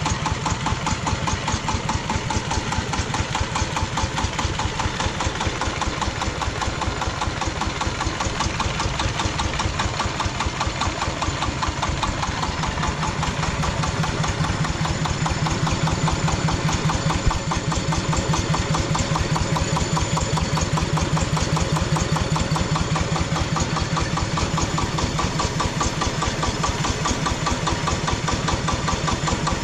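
Engine of a home-built tractor running steadily at idle, with a rapid, even pulse and a slightly fuller low tone for a stretch in the middle.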